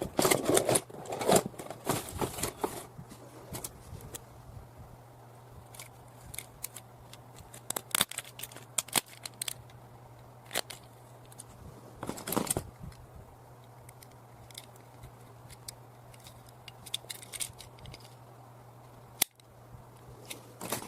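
Hands handling a blind-box toy car and its plastic packaging: irregular clicks and crinkles, busiest in the first few seconds and again around 8 and 12 seconds in, over a steady low hum.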